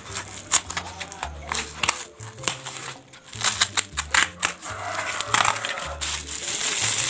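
A small cardboard box being torn and pried open by hand, with a run of sharp rips and cracks. From about five seconds in, the plastic bag inside crinkles as it is handled.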